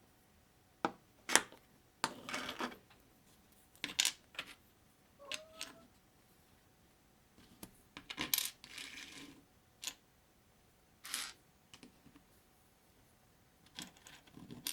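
Small Sembo plastic building bricks being handled, giving scattered sharp clicks and a few short clattering rattles every second or two.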